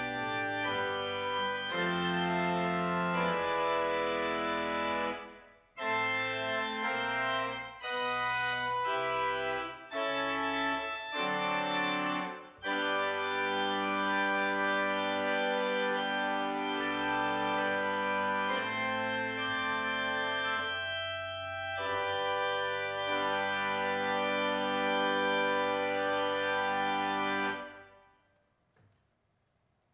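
Organ music: sustained chords over a bass line, with two brief breaks in the first half, ending on a final chord about 28 seconds in.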